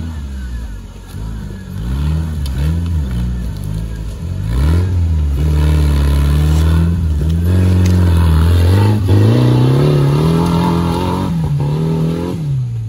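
Off-road 4x4's engine revving hard, its pitch rising and falling again and again as it is worked in mud, loudest through the second half and easing off near the end.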